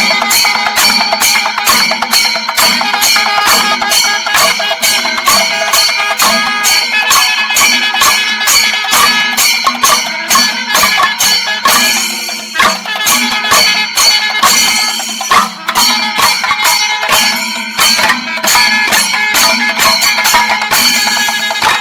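Kerala temple percussion ensemble of chenda drums and ilathalam hand cymbals playing a fast, steady beat, the cymbals ringing over the drum strokes.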